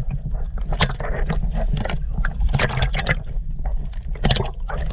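Lake water sloshing and gurgling around a half-submerged camera at a boat's side, with a low steady rumble and many irregular small splashes.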